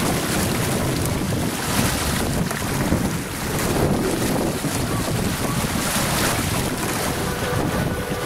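Wind buffeting the microphone over the steady wash of waves and water, aboard a sailboat under sail.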